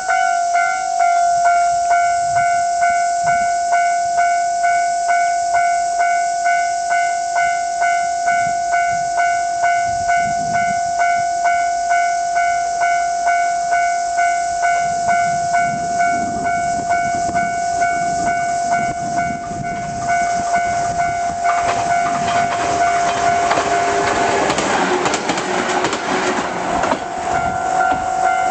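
Japanese level crossing warning bell ringing steadily, a little under twice a second. A JR West 113 series 3800 sub-series electric train approaches from about halfway and passes over the crossing, its noise growing until it drowns the bell in the last quarter. The bell is heard again just before the end.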